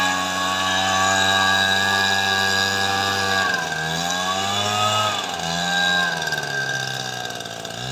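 Two-stroke backpack blower engine running at full throttle, then throttled down and back up twice, the pitch falling and rising each time, as the air blast is turned on a burning leaf-litter fire.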